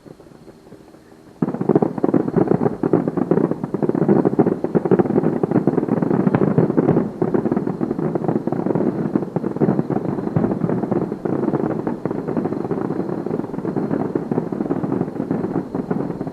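Fireworks going off in a dense, continuous barrage of bangs and crackles, starting suddenly about a second and a half in.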